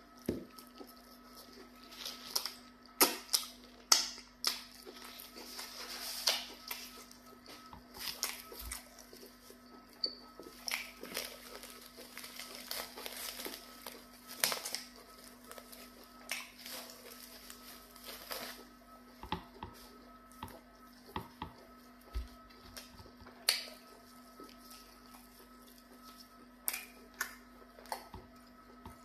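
Close-miked eating sounds: irregular wet chewing and lip-smacking clicks, with plastic wrap crinkling as it is peeled off a ball of pounded yam fufu partway through.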